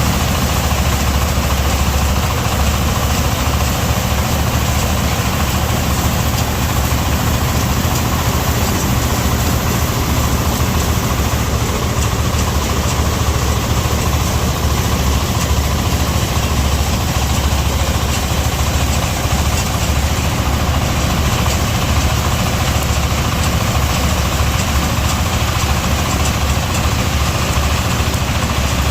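An engine running steadily with a heavy low hum, without change in speed.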